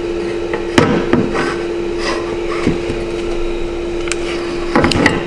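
A C3 Corvette headlight bracket being worked into place by hand: a few scattered knocks and rubbing as it is angled in, with a cluster of knocks near the end. A steady hum runs underneath.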